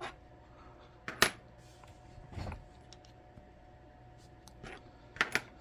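Light metallic clicks and taps of small lock parts and tools being handled while the lock cylinder is taken apart, a few scattered clicks with a close pair about a second in and another pair near the end.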